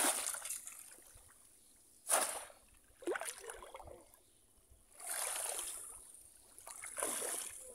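Shallow floodwater splashing and sloshing in about five separate bursts as hands grab and legs wade through it, the loudest splash at the very start.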